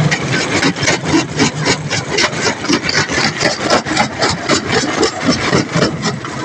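Engine idling with a regular, even chugging beat of about four pulses a second.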